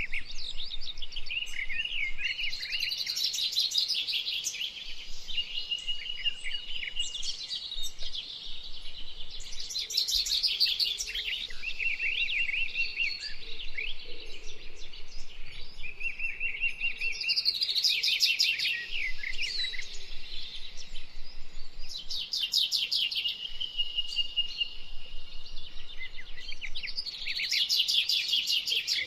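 Several birds calling and singing: bursts of rapid chirping trills every few seconds, between them a held whistled note, over a faint steady hiss.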